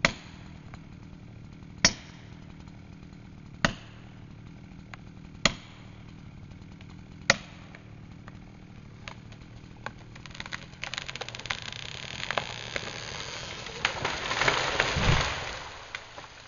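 Five sharp blows, about two seconds apart, driving a felling wedge into the back cut of a big rear-leaning beech. From about ten seconds in, the hinge wood starts to crackle and the tree goes over. The crackling builds to a loud crash of branches and a heavy thud as the beech hits the ground near the end.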